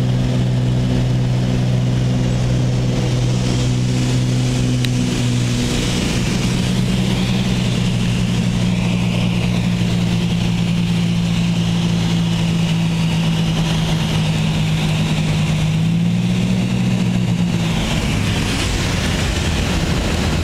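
Cessna 310's twin piston engines and propellers droning, heard inside the cabin on the landing approach. The pitch steps down about six seconds in as power comes back, and near the end the steady drone gives way to a rougher rumble as the aircraft rolls along the runway after touchdown.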